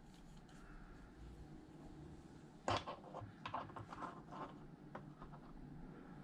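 Small parts and tools being handled: one sharp click or knock about three seconds in, then a quick run of lighter clicks and taps, over quiet room tone.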